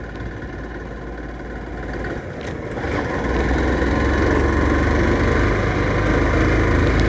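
Motorcycle engine running as the bike rides over a rough road, getting louder about three seconds in and then holding steady.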